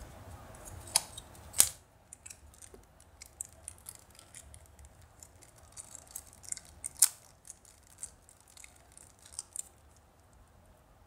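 Clear plastic packaging crinkling and clicking as a small gashapon prize is handled and unwrapped from its bag. Two sharp snaps come about a second in, then a run of small crisp crackles with another loud click midway.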